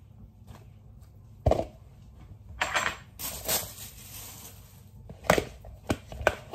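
Kitchen handling sounds while preparing cake ingredients: a few sharp knocks of things set down or tapped on the counter, with a stretch of rustling in the middle.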